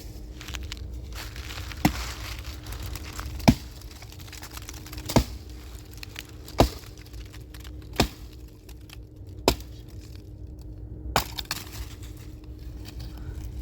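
Firewood being chopped: about seven sharp strikes of a blade into wood, evenly paced about a second and a half apart.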